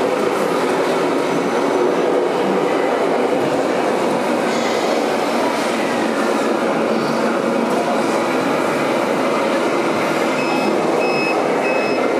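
Steady, loud rumbling running noise without pauses. About ten seconds in, an electronic warning beeper starts sounding short, evenly repeated high pips.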